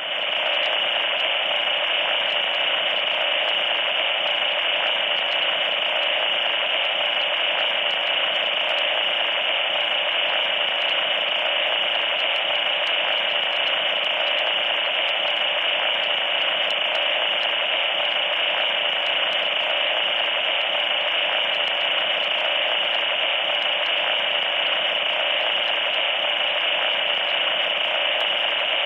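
Loud, steady electronic static noise: a harsh, unchanging hiss with no deep bass and a thin, shrill edge on top. It cuts in suddenly.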